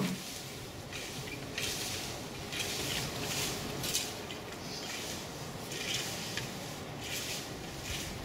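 Garden rakes scraping and rustling through dry fallen leaves and soil, in repeated strokes about once a second.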